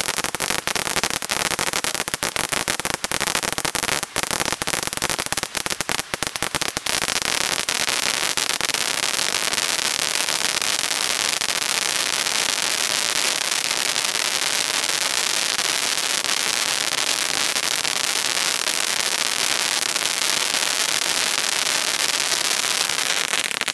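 Zeus Crazy Cone Fountain, a Category 2 cone firework fountain, spraying sparks with a steady, loud hiss, densely crackling for the first seven seconds or so and then hissing smoothly. It stops abruptly near the end as the fountain burns out.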